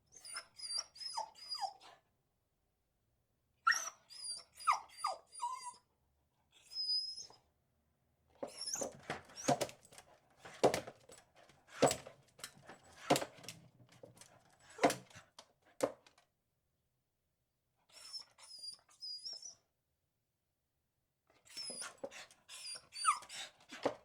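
Beagle barking in separate bursts with silent gaps between them, the longest run of sharp barks lasting about eight seconds in the middle.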